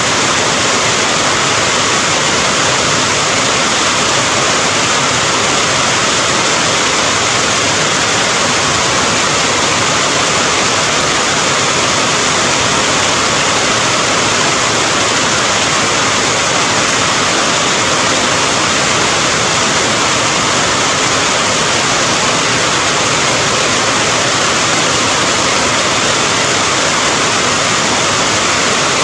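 Steady heavy rain: an even, unbroken hiss of falling water with no single drops or pauses standing out.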